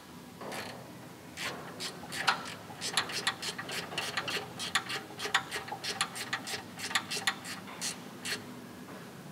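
12 mm ratcheting spanner clicking in quick, uneven runs of short strokes as a bolt is tightened.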